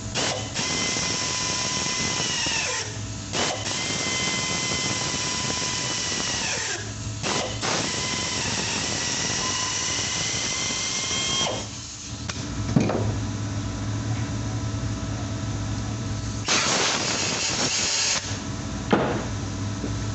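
High-speed rotary power tool whining as it works a cracked cast cylinder head. Its pitch sags and it stops briefly about three, seven and eleven seconds in, then starts again. A louder hissing burst comes near the end, over a steady low hum.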